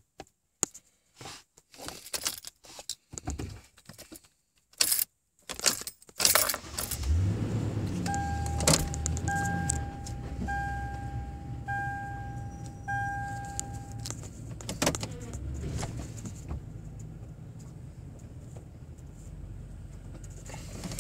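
Keys jangling and clicking against the ignition of a Toyota Tundra, then the engine starts about six seconds in and settles into a steady idle. A dashboard warning chime beeps five times in a row, a little over a second apart, just after the start.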